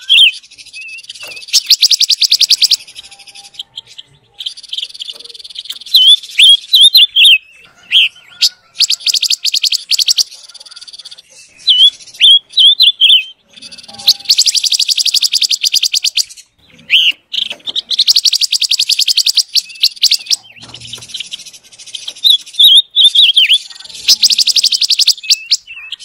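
Silver-eared mesia (the 'pancawarna') singing: short whistled, warbling phrases alternating with long, fast, buzzy chattering rattles, repeated over and over.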